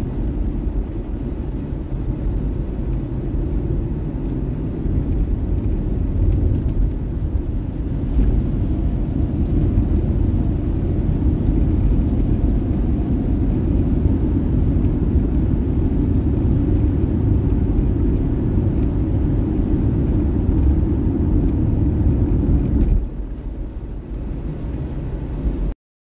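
Steady low rumble of a vehicle driving on a wet highway, engine and tyre noise heard from inside the cab. Near the end it drops a little, then cuts off suddenly.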